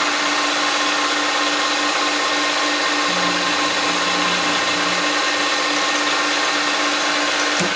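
Optimum MB4 geared mill-drill running, its end mill taking a light surfacing cut on an aluminium pillar-block casting. It makes a steady whine, and a lower hum joins about three seconds in and drops out about two seconds later.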